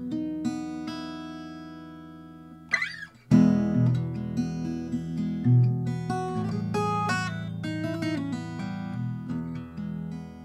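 Guild M-20 acoustic guitar being played: picked notes, then a chord left ringing and slowly fading. A short squeaky slide about three seconds in, then the playing comes back in, fuller and louder, with strummed and picked notes.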